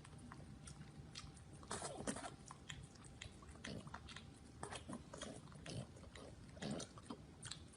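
A pet animal making faint, irregular short noises and clicks.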